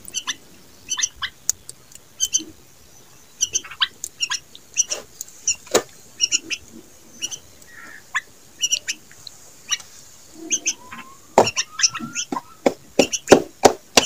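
Bulbuls calling: short, sharp chirps, the begging calls of a young bulbul close to an adult, repeated irregularly and coming faster and louder near the end.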